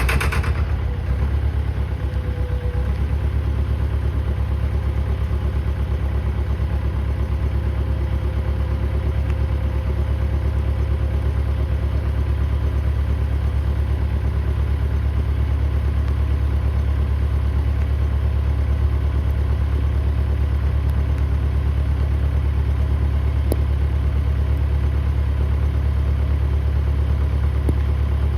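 John Deere 450 loader's engine idling steadily with a deep, even rumble.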